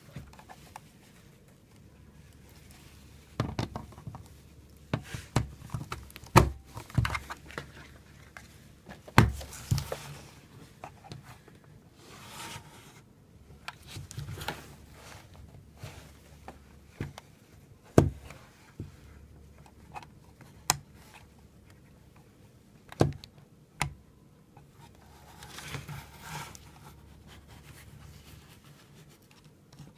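Close-up handling noises: irregular sharp clicks and light knocks, about a dozen, with soft rustling between them.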